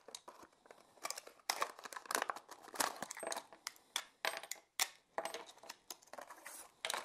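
Clicks and crinkling of a clear plastic broadhead case being opened and handled, with light taps as the metal broadheads are taken out and set down on a wooden bench. The sounds are short and irregular, with no steady sound between them.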